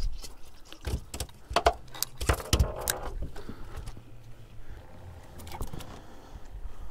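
A cluster of knocks and rattles in the first three seconds, then only a low steady background: a just-caught hogfish and the fishing tackle being handled and set down on a fibreglass boat deck.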